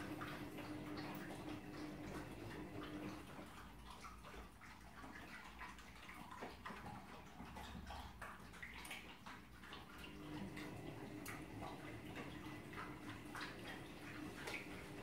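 Three dogs eating from bowls: wet slurping and chewing, with frequent small clicks of teeth, tongues and food against the bowls.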